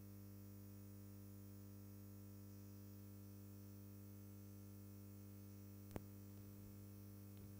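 Near silence: a steady low electrical hum from the hall's sound system, with a single sharp click about six seconds in.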